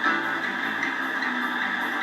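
Background music, playing steadily.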